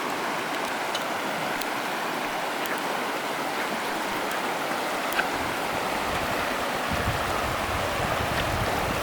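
Steady rush of the Virgin River's flowing water in the slot canyon. About seven seconds in, a low rumble joins it.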